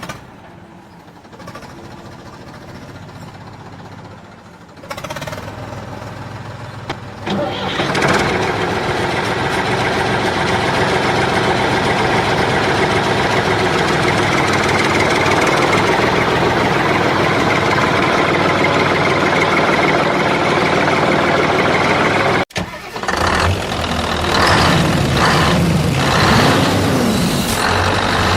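An engine-like running sound builds up over the first several seconds and then runs loud and steady. It breaks off suddenly about 22 seconds in, then resumes with wavering, rising and falling tones.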